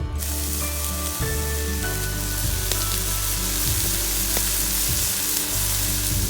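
Steady sizzling hiss from the wood-burning camp stove, cutting in and out sharply, over background music with a steady bass line.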